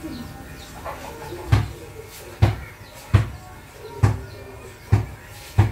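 A steady run of dull thumps, six of them, a little faster than one a second, evenly spaced and each dying away quickly.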